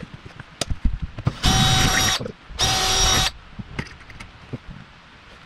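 Power drill driving a screw into wood overhead, run in two short bursts of under a second each with a steady motor whine, among a few light knocks and taps.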